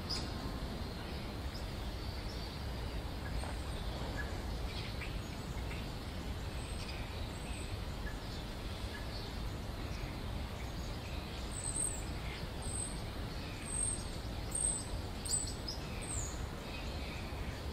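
Steady low background rumble with small birds chirping, short high thin chirps that come thicker and faster in the second half.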